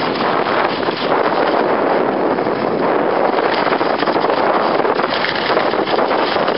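Steady rushing of wind on the camera microphone as the skier glides down the slope.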